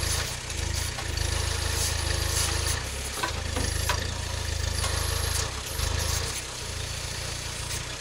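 Vlčnovjan 4x4 small tractor's engine running while its rear-mounted backhoe digs soil, the engine note changing every second or two as the hydraulics take load. A few short scrapes and knocks of the bucket in the earth.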